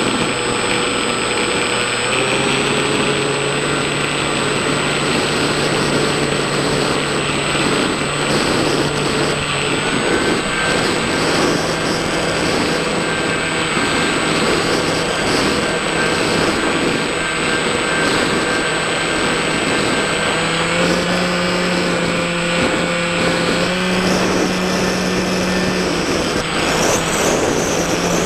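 Electric RC plane's motor and propeller running, heard from the onboard camera as a steady whine over a loud rush of air. The whine steps up and down in pitch a few times.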